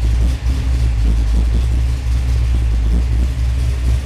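1968 Dodge Charger engine running steadily at idle under MegaSquirt MS3X control, on freshly entered base ignition and air-fuel maps that have not yet been tuned.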